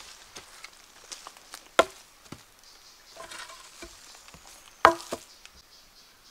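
Two sharp chopping strikes into wood, about three seconds apart, with lighter knocks and clicks between them.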